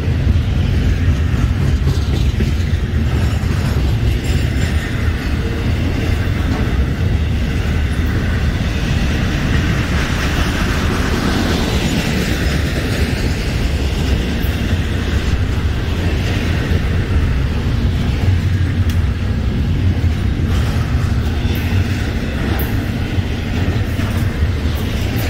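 Florida East Coast Railway double-stack intermodal freight train, its container cars rolling past close by: a loud, steady rolling noise of wheels on rail, heavy in the low end.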